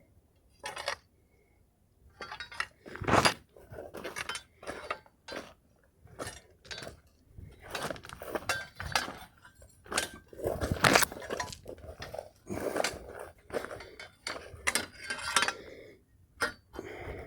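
Footsteps crunching through scrub, with twigs and brush snapping and scraping in quick, irregular cracks.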